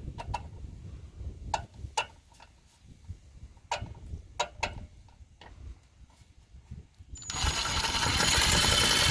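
Light clicks and knocks of parts and tools being handled, then, about seven seconds in, a cordless drill runs loud and harsh for about two seconds, driving a self-tapping screw into the truck's metal.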